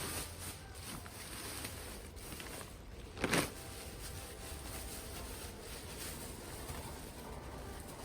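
Hands rummaging and rustling through potting soil in a potato grow bag, with one brief, louder rustle about three seconds in.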